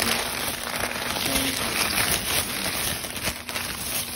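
Crumpled wrapping paper rustling and crinkling close to the microphone as it is pushed and handled, a dense crackle of many small crinkles.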